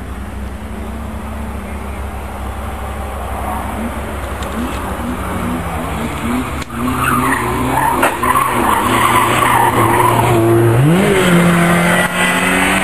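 Kia Picanto rally car's engine revving hard, its pitch rising and falling with the throttle and climbing sharply about eleven seconds in, growing louder as the car comes closer. Tyres hiss through wet slush as it passes.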